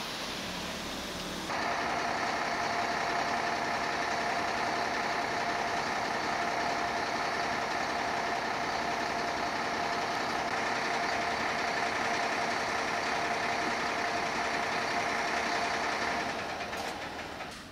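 Steady mechanical running of the stopped replacement bus, a hum with a steady whine. It cuts in abruptly about a second and a half in and fades away near the end.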